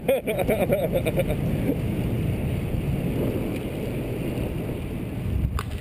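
Steady low rumble of wind on a GoPro Hero camera microphone muffled with cotton batting stuffed into its case, with the road noise of a moving recumbent trike.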